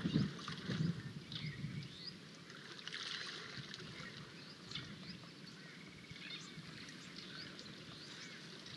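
Young African elephant sloshing and splashing in a muddy waterhole, with a few low splashes in the first two seconds, while small birds chirp throughout.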